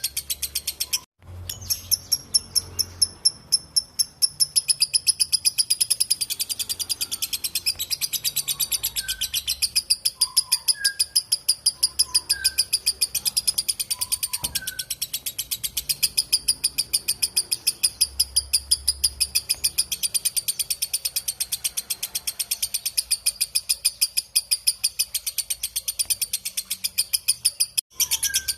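Lovebird 'ngekek panjang': a long, unbroken chatter of rapid, sharp, high-pitched notes. It breaks off briefly about a second in and again near the end. Faint, short, lower whistles from other birds come and go underneath.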